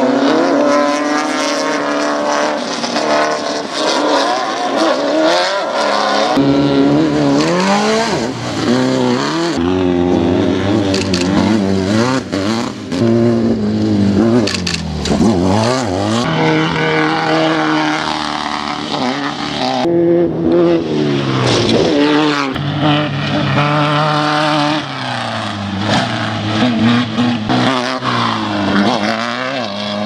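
Off-road desert race cars' engines revving hard and passing by, pitch climbing and falling through gear changes and as each car goes past. The sound breaks off abruptly several times and picks up on another car.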